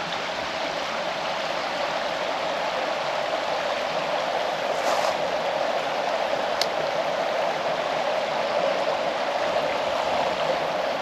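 Shallow creek water flowing steadily over rocks, a constant rushing babble that grows slightly louder, with two faint ticks near the middle.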